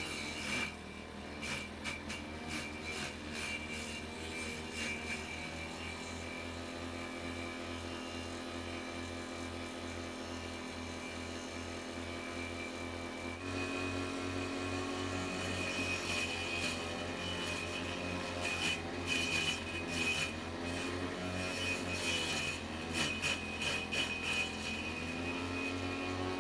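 Homemade vegetable chopper, a water-pump motor driving a grass-cutter blade, running steadily while shredding greens, with irregular rapid chopping clicks. It gets louder about halfway through, and its hum dips in pitch a few times after that.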